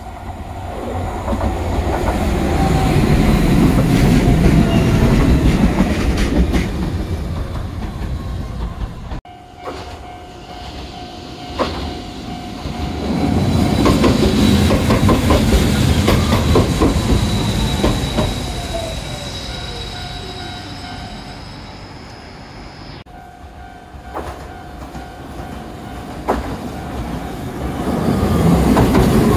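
Hiroden Miyajima Line trams pulling into a station, three arrivals cut one after another. Each has a rumble that swells as the car comes in, wheels clicking over rail joints, and a whine that falls in pitch as the car slows.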